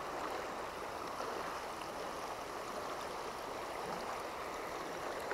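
Shallow, fast river water rushing over rocks in a steady, even rush.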